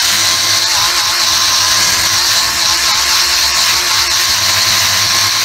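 Small 12-volt polishing tool running at a steady whine, its pad buffing scratches out of painted motorcycle bodywork.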